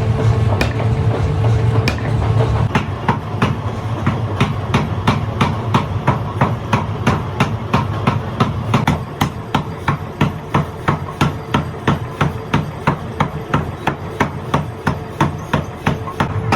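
Hammer striking metal in a long run of rapid, even blows, about three a second, over a steady machine hum that is heard alone at the start and end.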